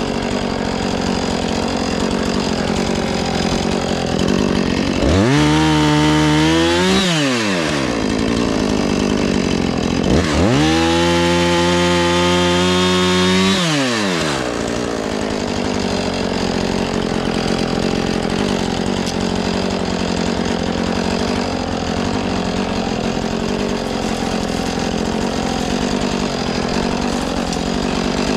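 Husqvarna 450 Rancher two-stroke chainsaw running, throttled up to high speed twice, briefly and then for about four seconds, and dropping back to idle between and after.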